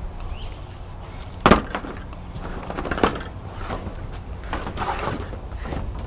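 Scrap and debris being handled and pulled loose from a curbside junk pile: a sharp knock about a second and a half in, another about three seconds in, with irregular rattling and rustling of pieces in between.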